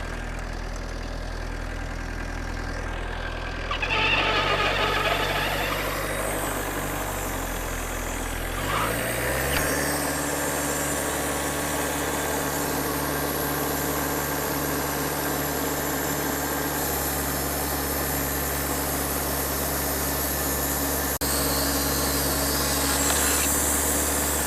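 Wood-Mizer LT-40 band sawmill running and sawing through a log with a used, hand-resharpened band blade. The engine runs steadily, speeds up about four seconds in and steps up again around nine seconds, then holds steady under load with a high hiss from the cut.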